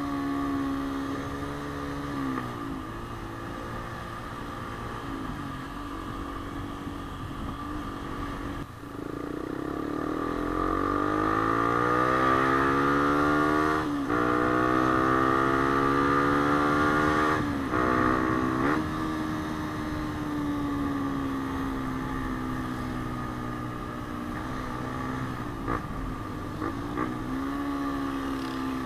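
Yamaha Sniper 150 motorcycle's single-cylinder four-stroke engine under way. About nine seconds in, the revs climb hard, with brief dips at gear changes around halfway, then the engine speed slowly falls away as it eases off. Steady wind rush runs underneath.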